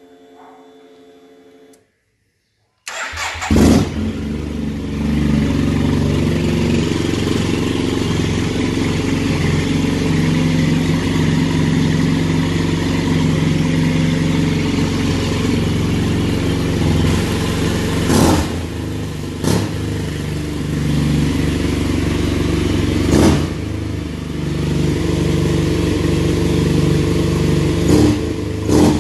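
Yamaha TMAX 500 maxi-scooter's parallel-twin engine starting about three seconds in after a faint hum, then idling steadily. A few brief sharp spikes break into the idle.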